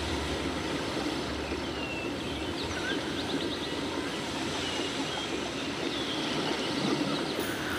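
Steady background noise with a few short, high bird chirps and a brief trill in the first half.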